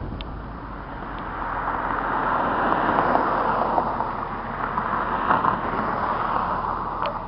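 1958 Chevrolet Bel Air on the move, heard from inside the car: a steady rush of road and wind noise over the low run of its 283 V8, swelling and easing in level.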